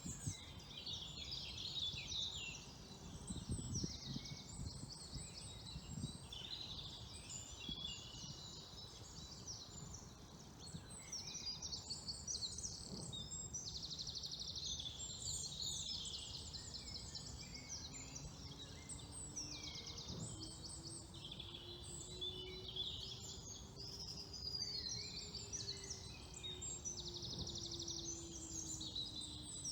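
Several wild songbirds singing at once, with overlapping phrases and fast trills. In the second half a faint low hum slowly rises in pitch and then falls away.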